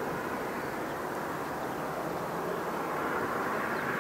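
Airbus A320 airliner's jet engines heard as a steady rushing noise while the aircraft rolls out on the runway after touchdown.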